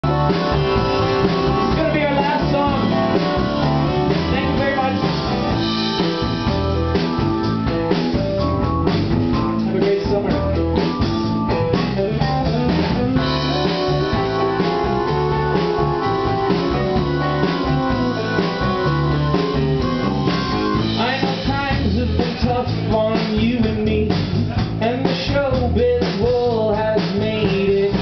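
Live rock band playing: electric guitar, bass guitar, drum kit and keyboard together at a steady loudness. A man's voice sings over the band near the end.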